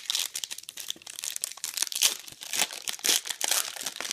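Foil trading-card pack being torn open and crinkled by hand: a run of irregular crackling and rustling.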